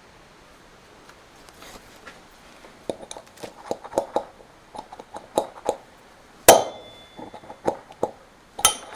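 Hammer striking a tapered steel pin used as a drift to knock a worn front wheel bearing out of a quad bike's wheel hub. A run of light taps starts about three seconds in, then two hard strikes, each leaving a short metallic ring, the second near the end.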